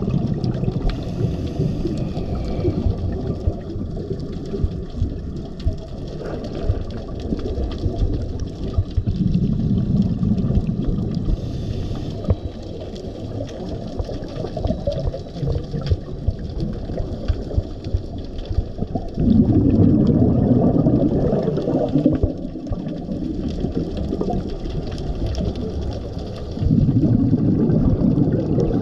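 Muffled underwater rumble on a diver's camera, broken three times by louder bouts of scuba regulator exhaust bubbles, several seconds apart.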